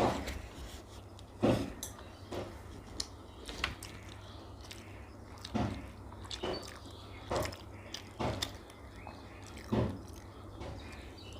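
Mouths eating syrup-soaked Bengali sweets such as rasgulla: short, wet biting, chewing and slurping sounds coming irregularly, about one a second, over a low steady hum.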